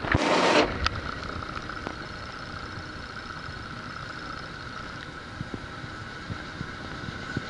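Running noise of a moving passenger train coach heard from its open doorway: a steady rumble and rush of the wheels on the track with a constant higher-pitched whine and a few light clicks. A short burst of rushing noise in the first half second.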